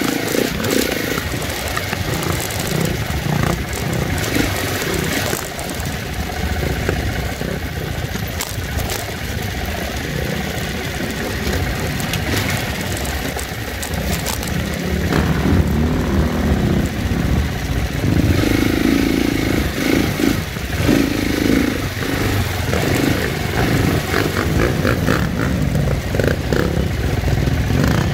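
Dirt bike engine running under varying throttle, its revs rising and falling as it rides over rock and sand.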